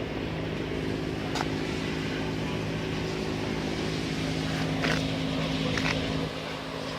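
The water-cooled, dual-overhead-cam Hyundai engine of a Mayco C30 concrete pump running steadily at an even speed, with a few faint clicks over it and a slight drop in level about six seconds in.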